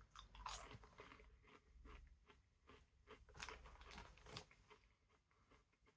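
Faint crunching of sugar-coated mushroom popcorn being chewed: an irregular run of small crisp crunches that dies away after a few seconds.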